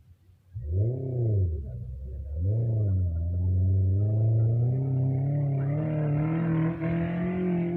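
Off-road 4x4 engine revved in two short blips, then rising steadily in pitch as the vehicle accelerates.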